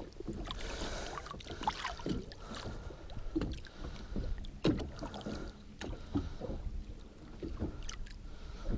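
Small irregular splashes and water lapping at the side of a boat as a musky is held by the tail at the surface and eased back and forth to revive it before release.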